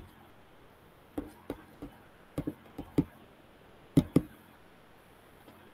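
Computer mouse clicking: about ten short, sharp clicks spaced unevenly over a few seconds, the loudest two close together about four seconds in.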